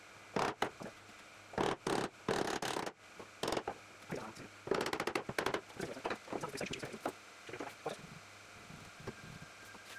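Chisel prying and scraping a wooden workpiece loose from the CNC machine's wooden bed: a run of short, irregular scrapes and knocks over the first six seconds, then only a few faint ticks.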